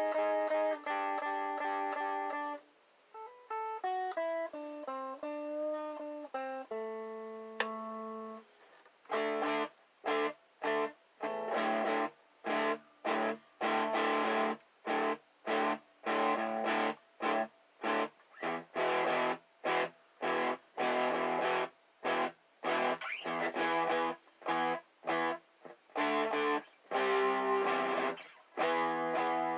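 Ibanez RG electric guitar being played: a line of single notes for the first several seconds, then a run of short staccato chords, each cut off sharply, about one and a half a second.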